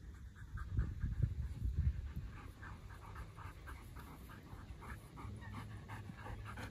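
A dog panting hard after running play, quick even breaths about three to four a second, with a few dull low thumps in the first two seconds.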